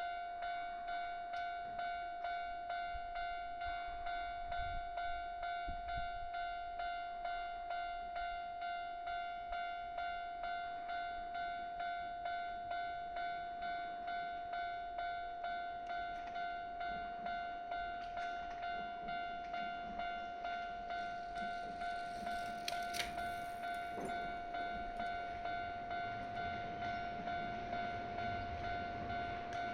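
Japanese level-crossing alarm ringing a rapid, even run of dings while the crossing is closed for an approaching train. In the last few seconds the low rumble of the oncoming electric train grows beneath it, with one sharp click.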